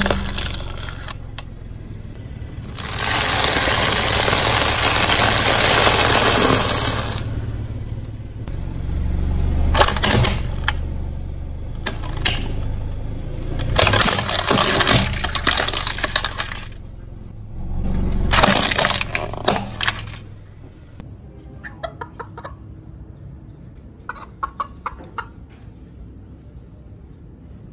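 Car tyre rolling over and crushing objects: a long stretch of crunching noise, then a series of sharp cracks and snaps, fading to small scattered clicks in the last few seconds.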